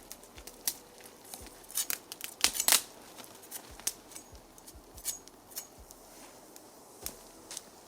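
Campfire crackling: wood snapping and popping irregularly, with a cluster of louder pops about two to three seconds in.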